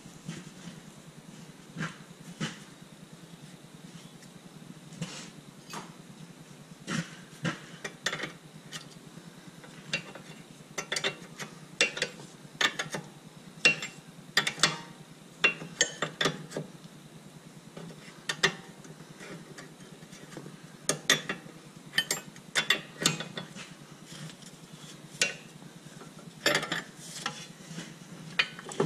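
Hand ratchet clicking and metal tools clinking while a lower ball joint nut is tightened, in irregular bursts of sharp clicks over a steady low hum.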